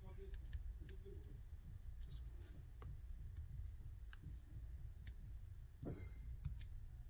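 Faint scattered clicks and light taps of small-parts handling as a wire and soldering iron are worked at the terminals of two cylindrical battery cells, over a steady low hum.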